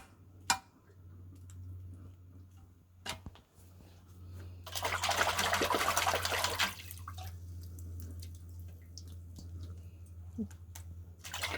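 Water splashing for about two seconds in the middle as a cleaned Dungeness crab is shaken and rinsed to wash out its innards. Two sharp knocks come at the start, and a steady low hum runs underneath.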